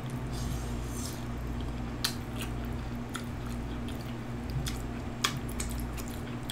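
Close-miked chewing of beef BBQ ribs, with sharp wet mouth clicks and smacks coming every second or so, over a low steady hum.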